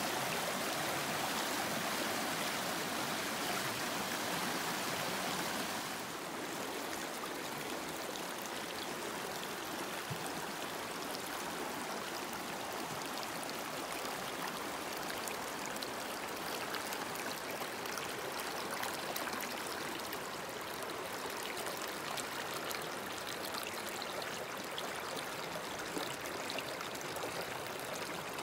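River water flowing, a steady rushing that drops a little in level about six seconds in.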